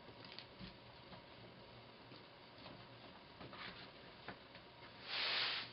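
Faint taps and clicks of cut sweet potato pieces being handled, then a short splash near the end as a handful drops into the full pot of soup.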